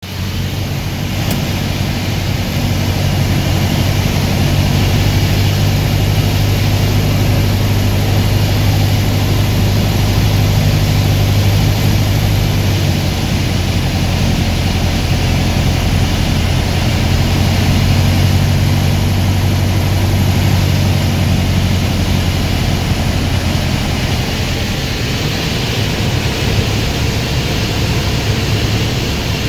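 Single-engine light aircraft's piston engine and propeller, a steady drone heard from inside the cockpit with a rush of air noise, during a descent on the landing approach. The drone grows a little softer over the last several seconds.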